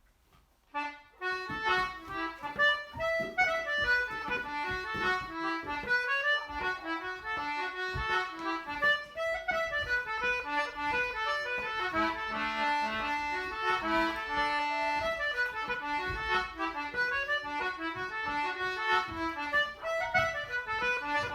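Lively Irish traditional dance tune played on accordion, a fast run of notes starting about a second in.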